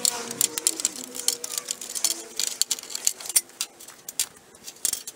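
Steel sill repair panel being bent by hand and handled against the metal trailer: a run of sharp clicks and knocks, thinning out after about four seconds.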